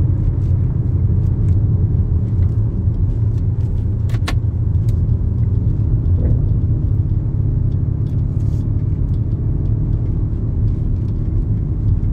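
Steady low rumble of a car driving, heard inside the cabin, with a sharp click about four seconds in.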